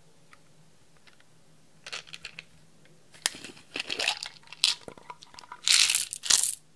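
A plastic bead container being handled and opened, then small red beads poured out and rattling onto a clear baking dish. Irregular clicks and clatters start about two seconds in and are loudest near the end, where they stop suddenly.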